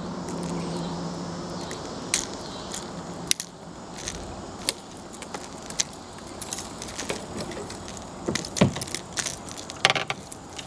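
Scattered metallic clicks and clinks of needle-nose pliers and a crankbait's treble hooks as the lure is worked out of a bass's mouth. A steady low hum runs underneath for about the first three seconds, then stops.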